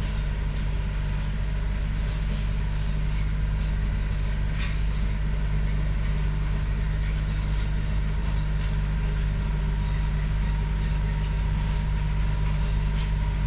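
Tractor engine running steadily, driving a PTO rototiller that is tilling mulch into the soil.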